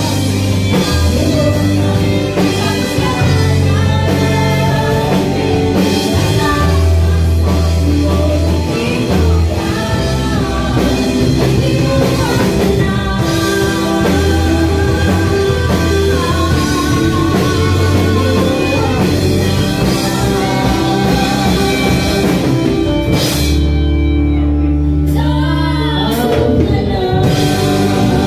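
Live rock band playing: a woman singing into a microphone over electric guitars, bass guitar, keyboard and drum kit. Near the end the drums and cymbals drop out for a few seconds under a held low note.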